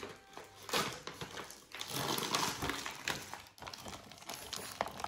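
Plastic dog-treat packaging crinkling and rustling as it is pulled open by hand, with many small crackles, loudest about halfway through.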